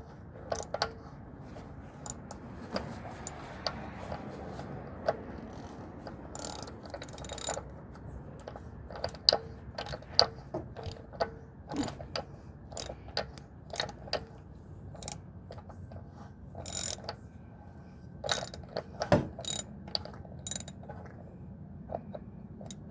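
Ratchet wrench clicking in short irregular runs as it unscrews the cartridge oil filter housing with a cap-style filter wrench, the housing already broken loose.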